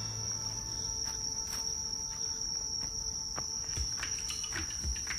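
Night insects singing: one steady, unbroken high-pitched trill, with a few faint clicks over it.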